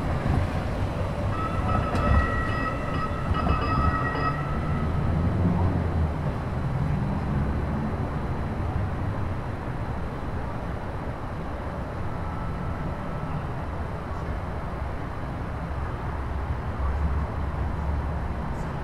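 RTD light rail train running through the downtown street loop, a steady low rumble mixed with street traffic. A steady high-pitched tone sounds from about one to four seconds in.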